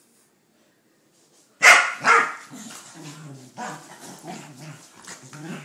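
Two corgis play-fighting: a loud double bark about a second and a half in, followed by repeated growling and grumbling.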